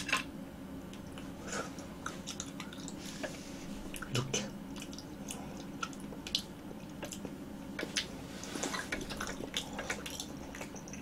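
Soft green grape jelly balls being pinched apart and eaten: scattered small wet clicks and squishes, with a sharp click right at the start.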